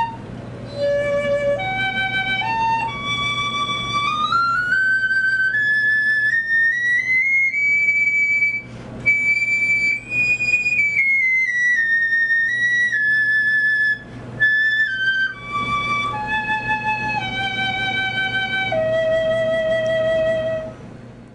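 Powell Sonaré piccolo, a wood-resin body with stainless steel keys, played solo: single notes climb step by step from its low register to high, then step back down, with a few short breaks for breath.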